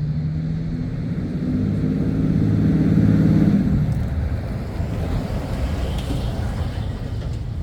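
A motor vehicle going by, its engine hum swelling to a peak about three seconds in and then fading, over a steady low rumble.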